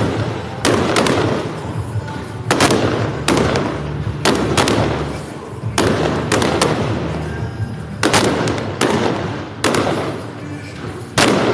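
Fireworks display: aerial shells bursting one after another, about a dozen sharp bangs roughly a second apart, each trailing off in a rumbling echo.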